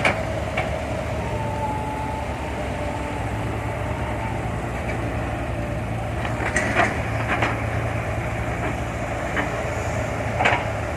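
Diesel engine of a Kobelco SK120-5 hydraulic excavator running steadily while it digs, with a few sharp knocks, three of them close together past the middle and one near the end.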